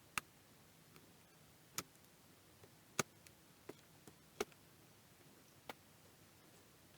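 Sparse, light clicks and taps from small parts and a hand tool being handled, about half a dozen spread unevenly, with the sharpest about three seconds in and another a second and a half later.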